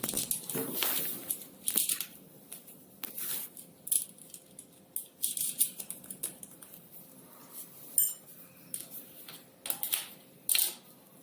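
Irregular metallic clicks and clinks of a wrench tightening the front axle nuts on an e-bike's fork, with short scraping sounds in between.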